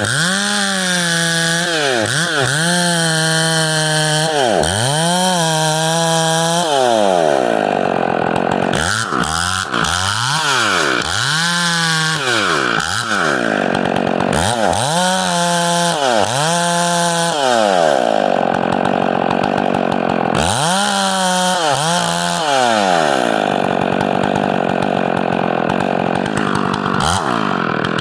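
Two-stroke chainsaw running at high revs, its pitch dropping and climbing back over and over, typical of a saw working through wood.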